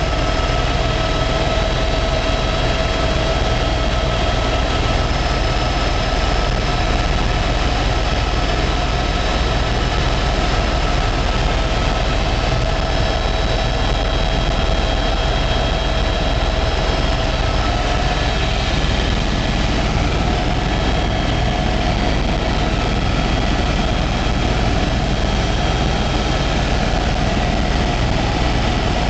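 Eurocopter B4 (EC130) single-turbine helicopter in cruise flight, heard from inside the cabin. A steady turbine whine made of several high tones sits over a deep, even drone from the rotor and engine.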